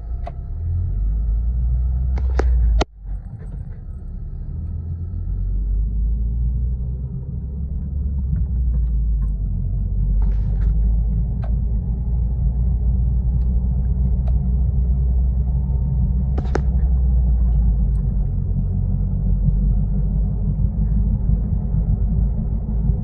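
Low, steady drone and rumble heard inside a moving Toyota Corolla Altis, the noise of a bad wheel bearing. It grows louder over the first several seconds, then holds. A few brief clicks sound, one about two seconds in and others later.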